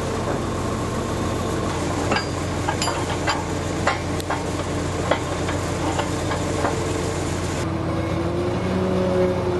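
Marine travel lift's engine running steadily, with several sharp metal clanks from its lifting gear and the metal dock frames about two to five seconds in. Near the end the engine note changes.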